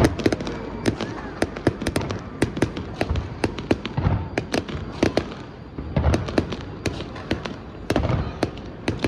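Fireworks going off: a dense run of sharp cracks and pops, with deeper booms about every two seconds.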